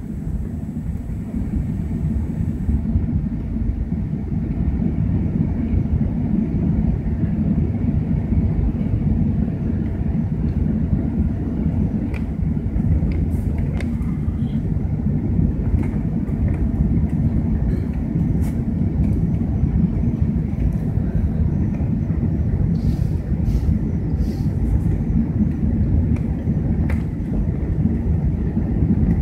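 Steady low rumble inside the cabin of an Airbus A380-800 on approach to land: engine and airflow noise, with a few faint clicks.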